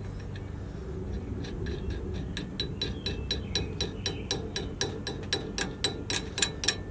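A nut is spun by hand onto a freshly fitted knurled wheel stud, against a washer on the hub. It makes a run of metallic clicks, about four a second, that grow louder toward the end.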